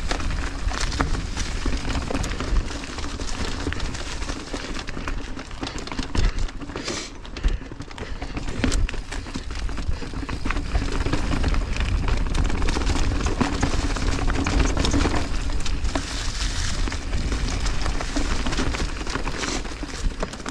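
Mountain bike riding fast down a dry, leaf-covered dirt trail: tyres rolling over leaves and dirt, with frequent rattles and knocks from the bike over bumps, and a low rumble of wind on the helmet camera's microphone.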